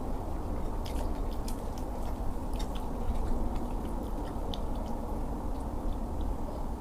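A person chewing a mouthful of food close to the microphone, with many small wet clicks over a steady low hum.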